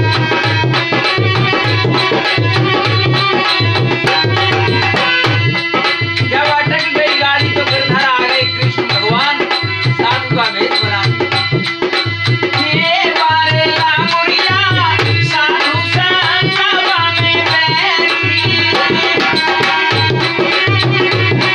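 Harmonium and dholak playing a Rajasthani languriya folk song: the harmonium sustains a steady chord-and-melody drone over a regular hand-drum rhythm. A man's voice sings along through the middle stretch.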